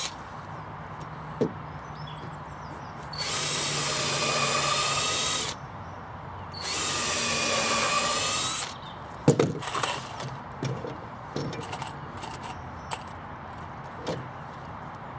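Cordless drill running into timber battens in two bursts of about two seconds each, the first about three seconds in and the second about six and a half seconds in. Short knocks and clicks of wood and tools being handled follow.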